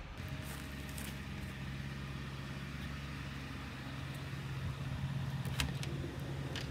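An engine running steadily at idle, a constant low hum, with a couple of sharp clicks near the end.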